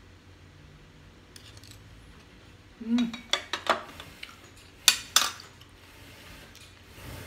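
Metal spoon clinking and scraping on ceramic plates as minced meat is scooped and a plate is set down. A cluster of clinks comes about three seconds in, then two sharper, louder knocks about five seconds in.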